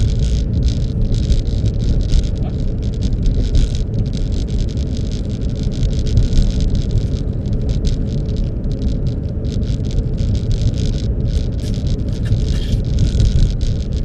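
Car in motion: a steady low rumble of road and engine noise with a fluctuating hiss, like wind passing the microphone.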